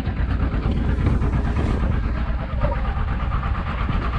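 Fishing boat's machinery running steadily: a low rumble under a broad hiss.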